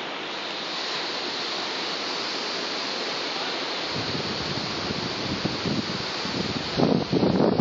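Steady rushing noise of a night thunderstorm, with wind buffeting the microphone from about four seconds in and growing louder and gustier near the end.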